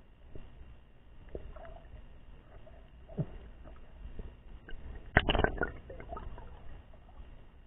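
Muffled water noise picked up by a camera held underwater: low rumbling with scattered small knocks and gurgles. About five seconds in there is a brief, louder rush of water.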